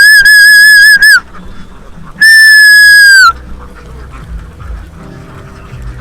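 Whistling to drive a flock of ducks: two loud, long, steady whistle notes, the first ending about a second in, the second starting about two seconds in and sliding down in pitch as it stops.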